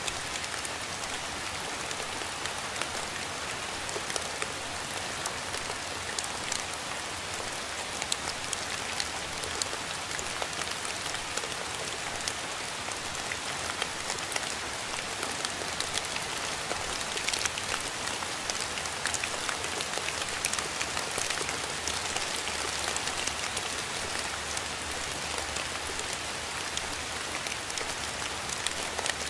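Steady rain falling: a constant even hiss with many small sharp drop hits scattered through it.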